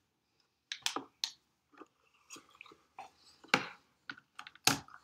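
Scattered light clicks and taps from makeup items being handled, about ten in all, the loudest about three and a half seconds in and again near the end.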